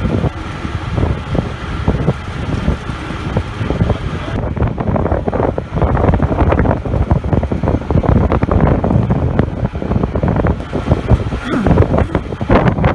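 Strong wind buffeting the microphone on a fishing boat at sea, a loud, gusty low rumble that goes on without a break, over the running of the boat.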